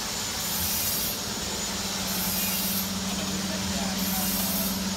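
CNC 3D wire-bending machine running as it forms 4.0 mm wire: a steady hum with a short high hiss that repeats about every two seconds.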